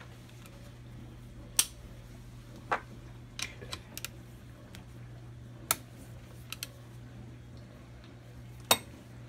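Sharp metal clinks and clicks of a socket tool being fitted and worked on the shift-drum detent plug of a Kawasaki KE100 engine's crankcase, about nine irregular strikes, three of them much louder. A steady low hum runs underneath.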